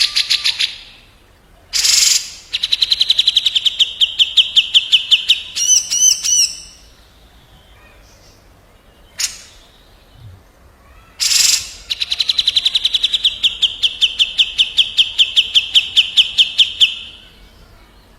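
Cucak jenggot (grey-cheeked bulbul) and kapas tembak calling back and forth. Short harsh rasping 'beset' calls alternate with two long, fast rolling trills that fall slightly in pitch, each lasting several seconds.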